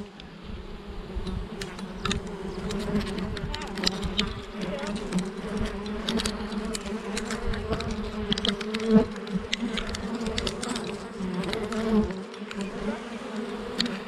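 Honeybee swarm buzzing in the air as it is brushed into a hive box: a steady hum with a lower and a higher tone, and scattered sharp ticks.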